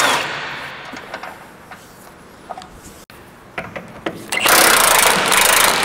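A handheld power tool running: a burst that ends just after the start, then about two seconds of it again near the end, with light clicks of tools and parts in between.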